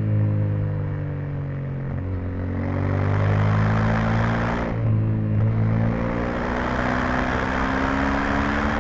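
Yamaha Ténéré 700's parallel-twin engine through its stock exhaust, heard onboard while riding. The engine note steps down about two seconds in and again near five seconds, then climbs steadily as the bike pulls, with wind rush rising and falling with speed.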